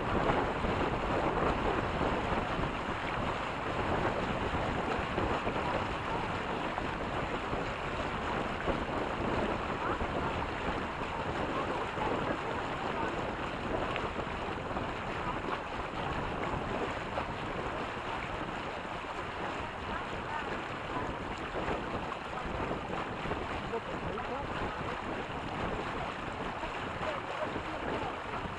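Water rushing and splashing past the hulls of a Reynolds 21 sailing catamaran under way, mixed with wind buffeting the microphone. It is a steady hiss that eases slightly toward the end.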